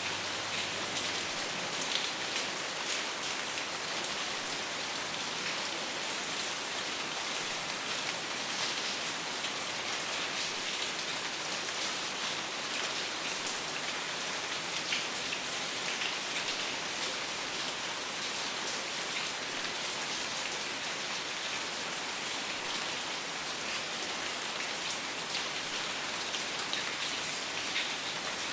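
Steady rain falling on a surface: an even hiss with many small drop ticks, unchanging throughout.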